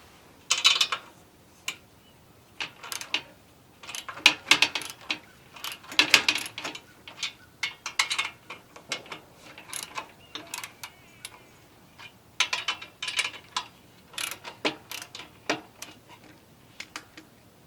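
Metal clicking and clanking in short, irregular bursts as the chainsaw mill's rails, bolts and clamps are adjusted and tightened by hand.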